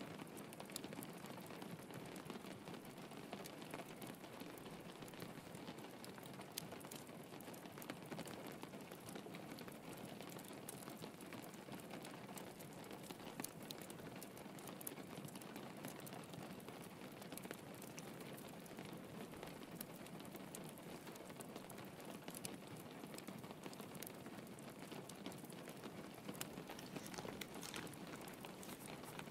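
Soft, steady rain pattering on a window, with scattered small crackles from a wood fire.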